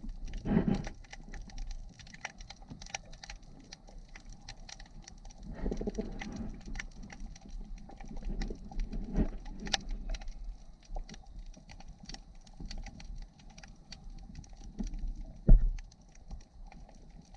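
Muffled underwater sound: many irregular crackling clicks, with a few dull low thumps, the loudest about 15 s in.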